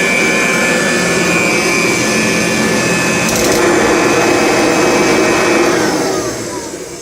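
Kirby 517 upright vacuum with its 10-blade metal fan running steadily with a high whine, then switched off about six seconds in, its pitch falling as the motor spins down.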